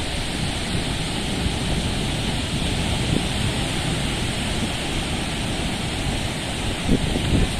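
Mediterranean Sea surf washing steadily, with wind on the microphone that buffets it in a few low gusts, about three seconds in and twice near the end.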